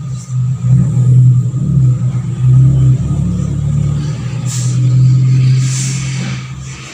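A motor vehicle's engine running close by, a low hum that swells and eases.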